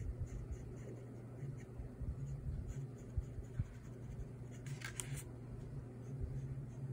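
Pen strokes scratching on drawing paper as shadows are inked in, with one brief, louder scrape about five seconds in, over a low steady hum.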